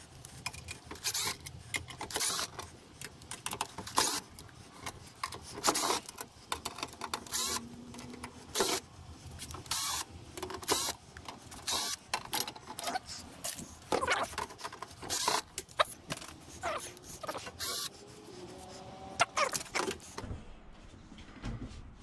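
Cordless drill-driver whirring in short bursts as it backs screws out of a microwave oven's sheet-metal cabinet, among many sharp metal clicks and clanks.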